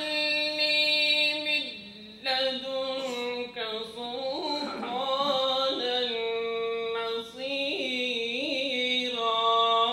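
A solo voice chanting a Quran recitation in long, held notes with ornamented wavering turns. It comes in phrases, with short breaths about two seconds in and again near three-quarters of the way through.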